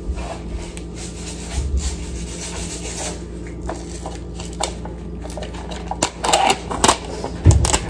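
Plastic food packaging rustling and crinkling as a pouch of rice is handled and opened, with sharper crackles of a second packet being handled later on and a low thump near the end.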